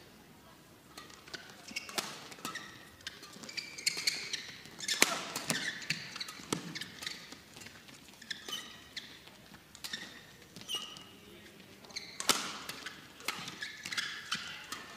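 Badminton rally: sharp racket strikes on the shuttlecock at irregular intervals, mixed with short high squeaks of players' shoes on the court.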